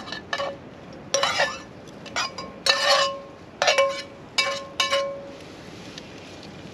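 A metal utensil clinking against cookware about eight times, some strikes ringing briefly, as onions and peppers are laid into a cast iron frying pan.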